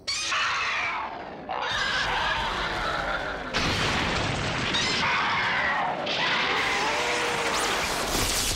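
Kaiju fight sound effects: several drawn-out monster roars that bend up and down in pitch, over a continuous crashing, rumbling din. The din jumps louder suddenly about three and a half seconds in.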